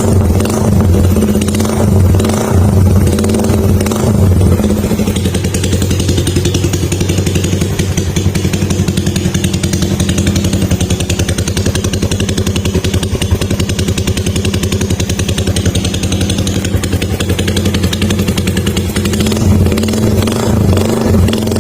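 Motorcycle engine running through an old Daeng tube-type aftermarket muffler, revved a few times at the start and again near the end, idling steadily in between.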